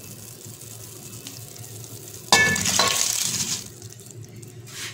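Soaked rice tipped from a bowl into a pot of simmering moong dal: a sudden splashing rush with a clink at its start, about two seconds in, lasting about a second. Before it, the dal simmers with a steady low hiss.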